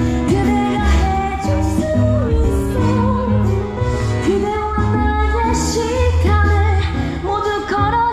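Music from an open-air stage musical played through loudspeakers: a voice singing over instruments, with a bass line underneath.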